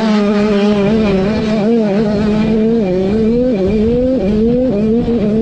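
Two-stroke KTM supermini motocross engine running hard at high revs, heard up close from on the bike, its pitch climbing and then dropping sharply about four times.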